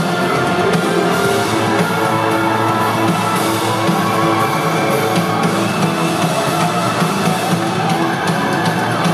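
Live rock band playing loud: distorted electric guitar, bass guitar and drum kit in a heavy, steady passage, heard through the venue's PA from the crowd.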